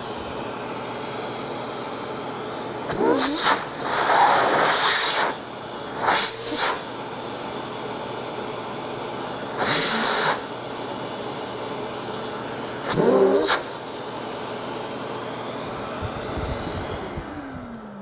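DEWALT Stealth Sonic 12-gallon wet/dry shop vacuum running steadily. Several times the hose is blocked and unblocked by hand, each time giving a brief louder rush of air and a shift in motor pitch. Near the end it is switched off and winds down with a falling pitch.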